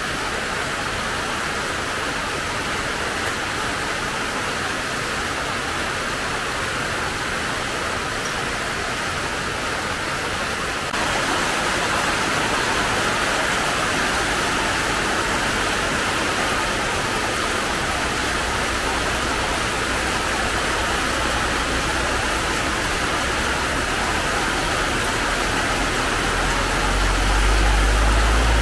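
Rain pouring steadily onto garden plants and a flooded yard, an even hiss that gets louder about eleven seconds in. A low rumble comes in near the end.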